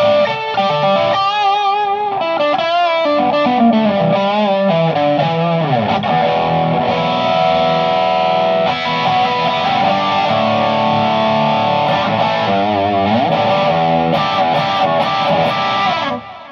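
Electric guitar played through a Naughty Amps Li'l Bitch amp head on a crunch tone: distorted chords and single-note lines with wide vibrato bends and a couple of slides. The playing stops suddenly near the end and rings out.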